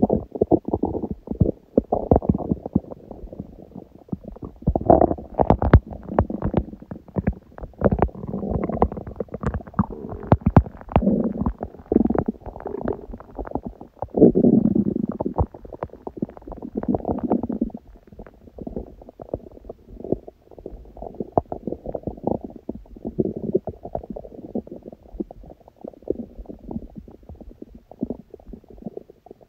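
A hungry, empty stomach growling: low rumbling with a constant run of small rattling and popping gurgles, swelling louder several times, most strongly about fifteen seconds in.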